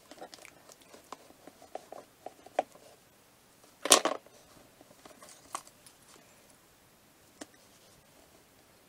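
Tabletop handling noise from working play dough by hand: scattered soft clicks and taps, one louder brief rustle about four seconds in, and a few single sharp ticks afterwards.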